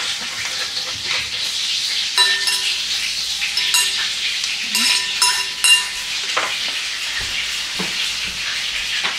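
Cutlets sizzling steadily in a frying pan. Between about two and six seconds in comes a run of ringing clinks from a masher knocking against a bowl.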